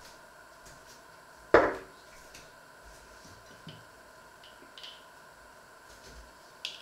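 A single loud clunk about a second and a half in, a ceramic cup set down on a wooden chopping board, with a short ringing tail. A few faint knocks and clicks follow, and a sharper click near the end, over a faint steady hum.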